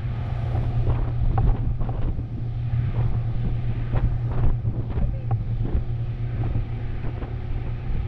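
Wind buffeting the camera's microphone on a moving pontoon boat: a steady low rumble with scattered knocks.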